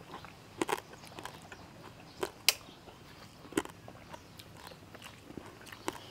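People eating at a meal: scattered sharp clicks and knocks with chewing between them, the loudest knock about two and a half seconds in.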